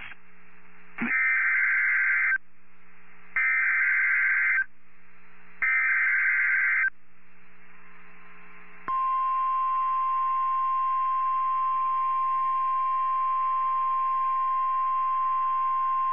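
NOAA Weather Radio Emergency Alert System signal: three short bursts of SAME digital header data, each a bit over a second long, with radio hiss in the pauses between them. About nine seconds in, the steady 1050 Hz warning alarm tone starts and holds, signalling that a warning message, here a Special Marine Warning, is about to be read.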